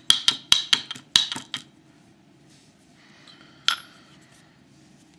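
Small metal lock pins clinking onto a hard surface as the lock is gutted, in a rapid run of sharp clicks for about the first second and a half, then one more click near four seconds in.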